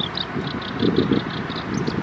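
A prinia singing a fast run of short, high, evenly repeated notes, about five a second, over gusts of wind buffeting the microphone, which are the loudest sound.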